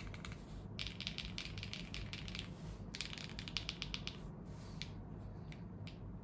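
Typing on a gasket-mounted, fully foamed Lucky65 mechanical keyboard with Akko Radiant Red linear switches on a POM plate. Fast bursts of keystrokes, slowing about four seconds in to a few separate key presses.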